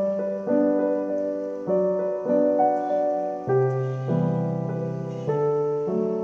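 Background piano music: a gentle melody of held notes and chords that change about every half second to a second.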